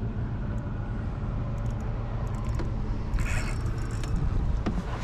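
Wind buffeting the microphone as a steady low rumble, with a short rushing noise about three seconds in.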